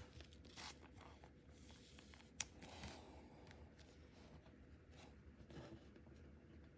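Faint rustling and light clicks of glossy trading cards being handled and slid against one another, with one sharper tap about two and a half seconds in.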